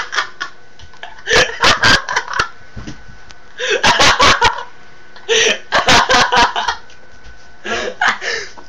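Bouts of hard, hiccupping laughter, about five bursts of rapid gasping pulses separated by short pauses.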